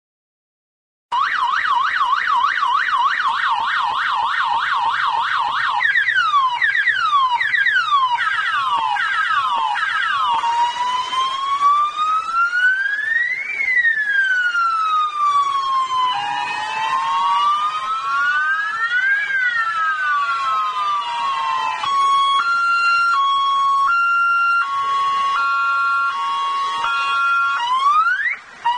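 Police patrol car's electronic siren cycling through its tones. A fast up-and-down yelp starts about a second in, followed by slower rising sweeps and then a slow wail that rises and falls twice. A stepped hi-lo pattern comes next, and rising sweeps return near the end.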